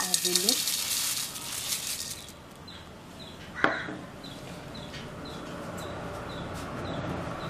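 Dry flakes poured into a stainless steel bowl, a rattling hiss for about two seconds, followed by a single sharp clink about halfway through. Faint high chirps repeat about twice a second after that.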